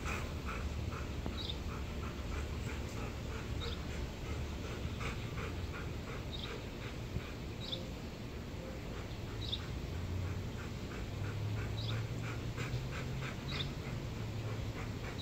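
A husky panting rapidly, about three breaths a second, with short high chirps every second or two.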